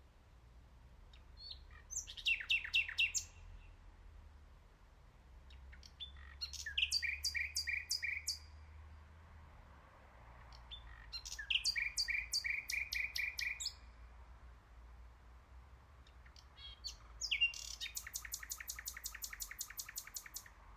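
Nightingale singing: four phrases a few seconds apart, each a fast run of repeated high notes. The last phrase, starting near the end, is the longest, a rapid even rattle of many short notes.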